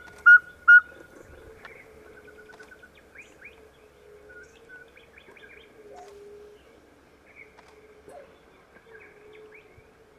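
Birds calling: a quick run of loud, evenly spaced whistled notes at the start, then softer scattered chirps and calls.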